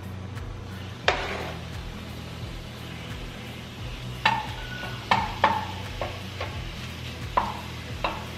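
Cubed chicken breast browning in hot oil in a frying pan: light sizzling, with a wooden spatula scraping and knocking against the pan several times. The sharpest knock comes about a second in.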